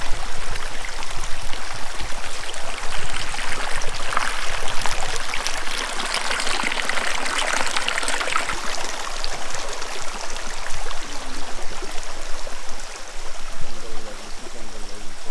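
Water running in a small stream with a small waterfall, a steady rushing hiss that swells for a few seconds in the middle.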